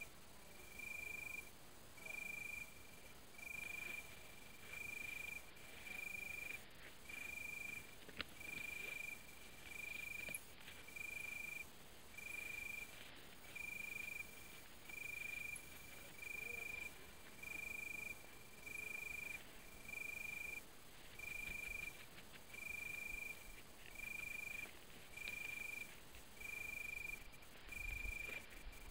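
Night insect chirping: one high note repeated very evenly about once a second, each note about half a second long. A sharp click comes about eight seconds in, and a low rustle near the end.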